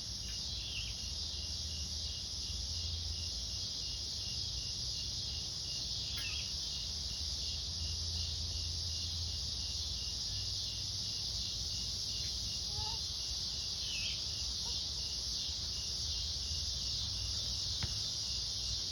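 Night insect chorus: a steady shrill hiss of insects, with a cricket chirping in an even pulse about two to three times a second. A few faint, brief calls slide down in pitch over it.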